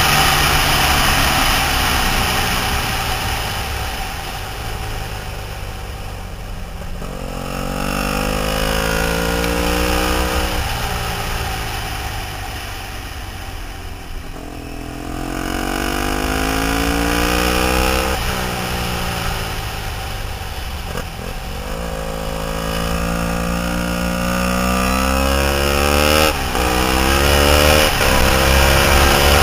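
Triumph Thruxton 900's air-cooled parallel-twin engine through a D&D 2-into-1 aftermarket exhaust, heard from the saddle while riding. It pulls up through the revs in several rising runs, and the pitch drops between them as the throttle is rolled off, with steady wind noise throughout.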